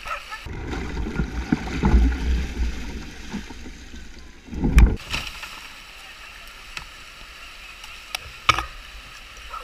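A canoe scraping and bumping along a brushy stream bank, heard as a muffled rumbling with knocks, then a heavy thump a bit before halfway. After that comes the steady rush of whitewater around the hull, with one sharp knock near the end.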